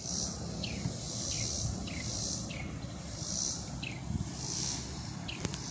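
Insects calling in a high, pulsing chorus that swells about once a second, with short falling chirps between the pulses, over a low rumble. There is a brief click near the end.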